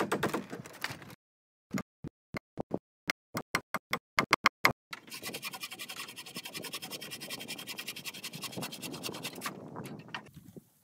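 A small hatchet chopping at a wooden pole in a quick series of sharp strikes, then a wooden frame saw cutting through a pole with steady rasping strokes from about five seconds in until shortly before the end.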